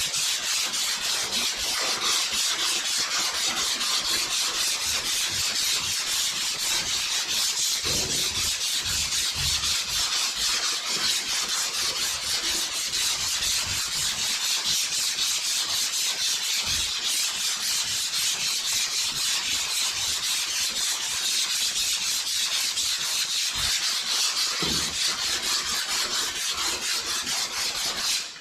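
Hand block sanding of high-build primer on a car body panel with 180-grit paper: a steady, dry rasping scrape that runs on without pause and stops abruptly at the end.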